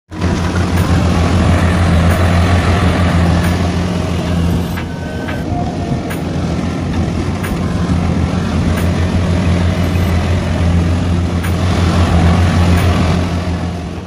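Kubota combine harvester running while cutting rice: a steady, loud diesel engine hum under the broad noise of the working machinery.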